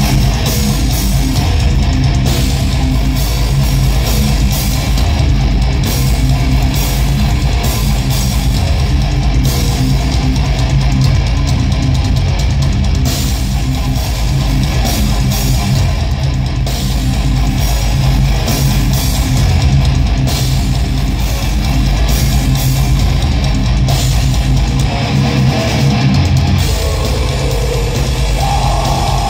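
Heavy metal band playing live: distorted electric guitars, bass and drums, continuous and loud.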